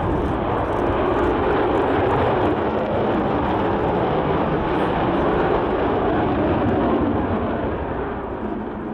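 Avro Vulcan XH558's four Rolls-Royce Olympus turbojets at high power as the delta-wing bomber climbs away, a loud, steady jet rumble that fades near the end.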